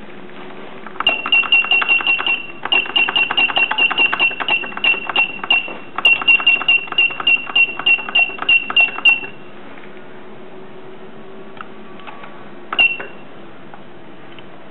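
Carousel automatic tape dispenser cycling rapidly, each stroke a short high beep with a click, about four to five a second for roughly eight seconds with two brief pauses. A single beep and click follow a few seconds later, over a faint steady hum.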